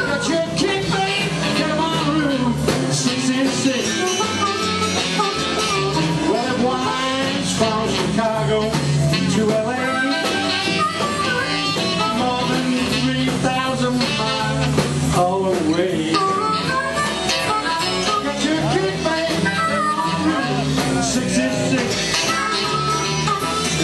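Live rhythm-and-blues band playing an instrumental break, led by a cupped blues harmonica over saxophone, electric guitars, bass and drum kit.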